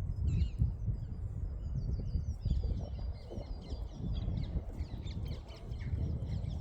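Small birds chirping and twittering repeatedly, with short rising and falling calls, over a steady low rumble.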